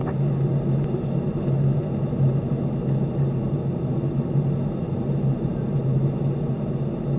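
Steady in-flight cabin noise of a Boeing 737-800 airliner: a constant drone of the jet engines and rushing air, with a low hum running underneath.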